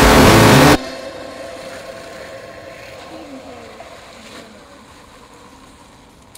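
Loud, dense, distorted industrial music that cuts off abruptly under a second in, leaving a faint drone with a few wavering tones that slowly fades away.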